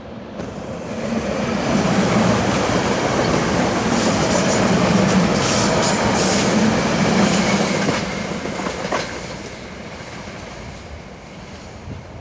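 SEPTA Silverliner IV electric commuter train passing through the station without stopping: a rail rumble and wheel noise that builds about a second in, stays loud for several seconds with sharp wheel clicks, then fades as the train moves away.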